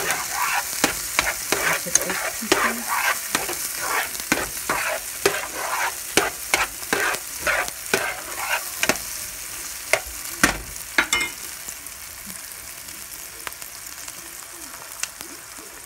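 Diced onion, green pepper and tomato sizzling in oil in a nonstick frying pan while a utensil stirs and scrapes them, about two strokes a second. The stirring stops about two-thirds of the way through, leaving a quieter steady sizzle.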